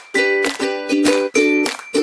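Background music with rhythmic strummed chords on a plucked string instrument.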